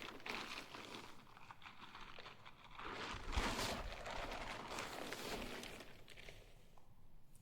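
Tent fabric rustling and crinkling as a tent is handled and pitched, with a louder stretch of handling and a dull thump about three and a half seconds in.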